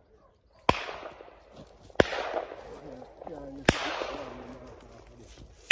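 Shotgun shots: three sharp reports about a second and a half apart, each trailing off in an echo, and a fourth right at the end.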